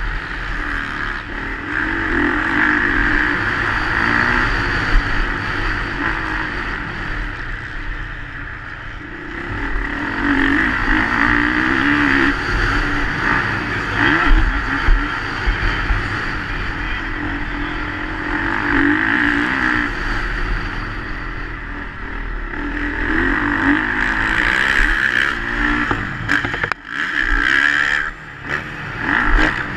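A motocross bike engine, heard up close from onboard the bike, revs up and eases off over and over as it is ridden around a dirt track.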